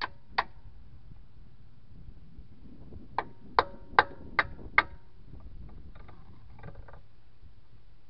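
Hammer striking a steel tire iron wedged between the tractor tire and its steel rim, each blow a sharp ringing clank. There are two blows at the start, then five in an even run of about two and a half a second, a few seconds in, driving the tool to pry the tire bead off the rim.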